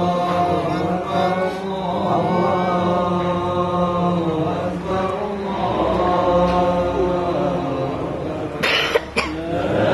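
Islamic devotional chanting in a mosque: a long, melodic recitation with drawn-out held notes. Someone coughs near the end.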